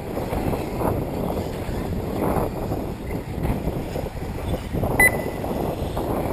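Wind buffeting the microphone over the running of 1/8-scale RC off-road buggies on the track. A single short, high electronic beep sounds about five seconds in.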